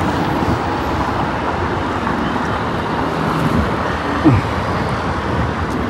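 Steady road traffic noise from passing cars, with a brief falling tone about four seconds in.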